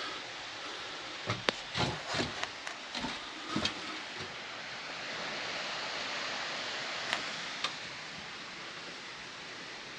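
Scattered sharp knocks and clatters, a quick run of them in the first few seconds and two more near the end, over a steady hiss.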